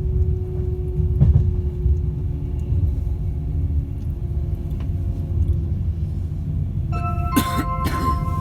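Class 390 Pendolino heard from inside the carriage: a steady low rumble of the train running, with a steady whine from the traction motors below the floor drifting slightly lower in pitch. Near the end, a couple of knocks and some ringing tones sound over it.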